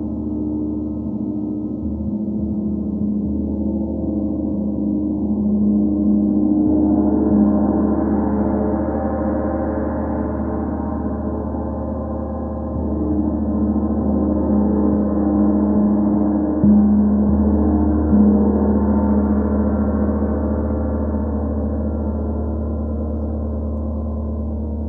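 32-inch Sri Yantra gong played with a short-handled Ollihess M174 mallet: a sustained ringing wash of low tones that swells as the gong opens up, building twice, with a couple of sharper strokes late on.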